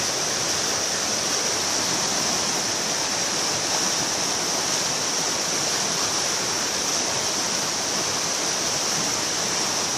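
The Pacolet River rushing past, a steady, unbroken noise of flowing water.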